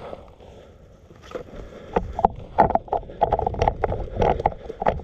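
Footsteps crunching through leaves and brush, a few steps a second, growing louder about two seconds in.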